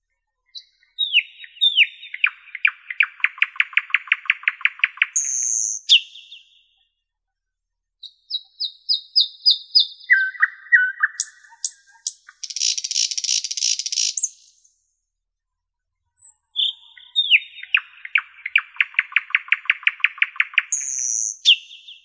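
Nightingale singing in loud, varied phrases separated by short pauses. Two phrases open with a few sharp whistled notes and run into a fast rattling trill of repeated notes. The middle phrase has a string of high piping notes, lower chucks and a harsh buzzing stretch.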